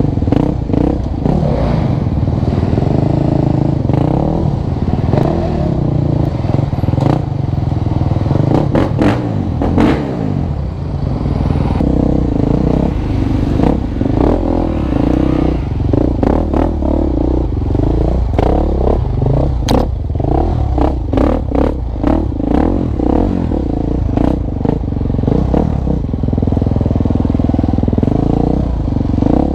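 A KTM 350 XC-F four-stroke single-cylinder dirt bike engine being ridden, its pitch rising and falling again and again as the throttle is opened and closed. Frequent clattering knocks come from the bike working over rough ground.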